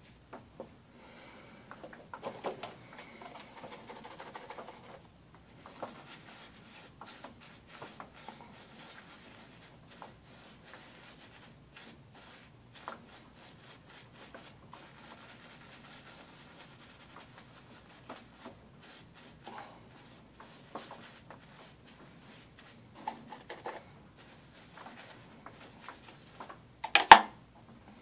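Shaving brush working lather into a beard and mustache: soft, intermittent scratchy rubbing and rustling, with a brief loud rush of noise about a second before the end.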